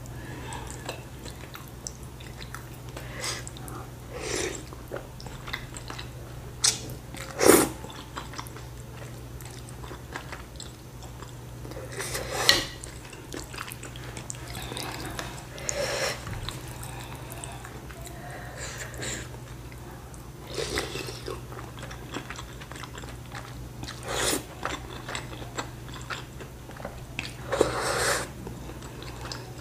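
A person eating chicken noodles close to the microphone: chewing, with a louder mouthful every few seconds, over a steady low hum.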